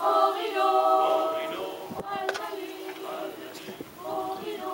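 Mixed choir of men's and women's voices singing held chords. The singing is loudest in the first second or so, softer in the middle, and swells again near the end.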